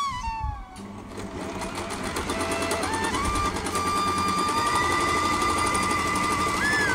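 Electric sewing machine running, stitching a ribbon trim onto cloth with a fast, even stitch rhythm that starts about a second in. Background music with long held notes plays over it.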